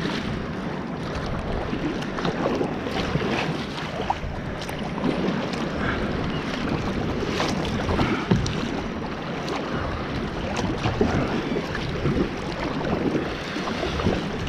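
Kayak being paddled through light chop: water rushing and splashing steadily along the hull and bow, with irregular small splashes of the paddle blades dipping.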